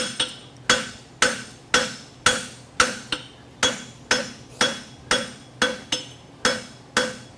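Hand hammer striking red-hot steel bar stock on an anvil horn, about two blows a second, each blow leaving a short metallic ring. A farrier is forging a draft horseshoe from 1/2" x 1-1/4" bar.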